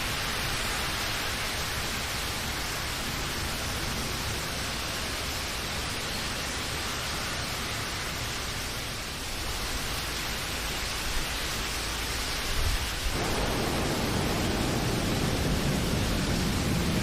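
Steady hiss of rain falling. About three-quarters of the way through, the sound abruptly turns deeper and a little louder, with a low rumble under the rain.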